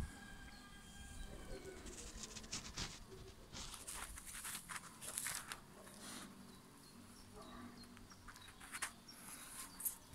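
Roe buck nuzzling at the phone: faint rustling and brushing noises close to the microphone. A bird calls in the first couple of seconds.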